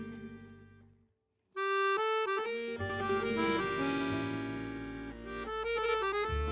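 Background accordion music: a melancholy Parisian-style accordion solo that fades out about a second in, falls silent briefly, then starts again.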